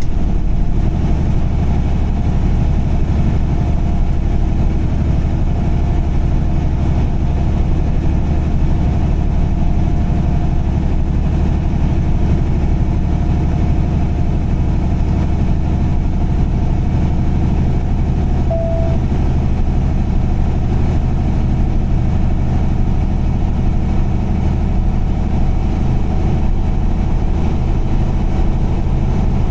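Steady low drone of a car's engine and tyres while driving at highway speed, unchanged throughout.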